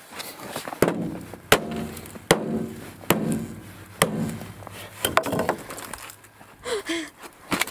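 An axe striking a frozen-together pile of salmon to break the fish apart: about six hard knocks, each under a second apart and each followed by a short ring, then quieter knocking and handling.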